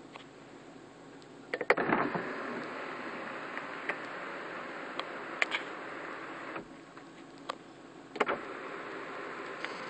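Clicks about a second and a half in, then a Lincoln LS power sunroof motor running steadily as the roof opens. It stops for about a second and a half near the end and starts again with another click.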